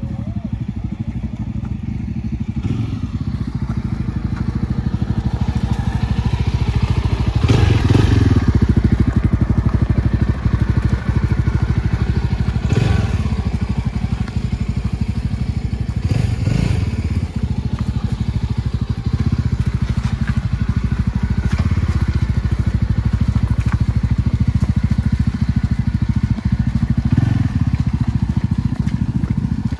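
Yezdi Adventure motorcycle's single-cylinder engine running steadily while riding a rough off-road track, with louder, noisier surges about 8, 13 and 16 seconds in.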